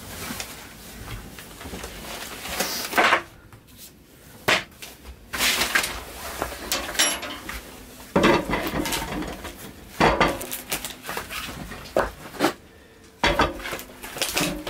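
Irregular clanks and knocks as a sheet-metal wood stove with an open door is handled and pieces of split firewood are set down and stacked, wood knocking on wood and on the tile pad.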